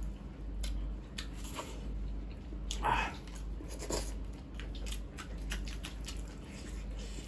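Close-miked eating sounds of people eating mutton curry and rice by hand: chewing and wet mouth clicks and smacks, a little louder about three and four seconds in.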